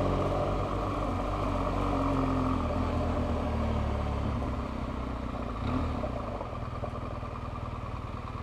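BMW R1200GS boxer-twin motorcycle engine running under way, with wind noise over it. The engine note is strongest at first and eases off in the second half as the bike slows.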